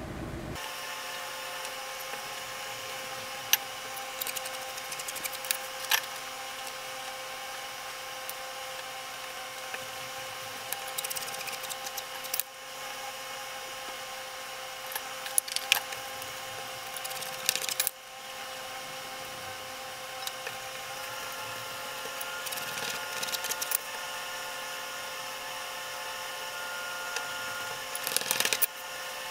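Fingers pressing and rolling small pieces of dough across a board to shape cavatelli, with soft scrapes and scattered taps, over a steady hum. Near the end a metal bench scraper cuts through a dough rope against the board with a short burst of scraping knocks.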